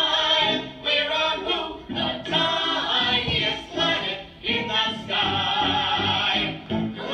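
A small group of voices singing a musical-theatre song together, with no break.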